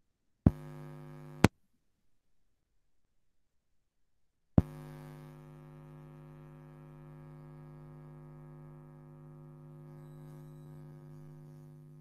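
Steady electrical hum with many overtones. It switches on with a click, cuts off with a click about a second later, then clicks back on a few seconds in and keeps running.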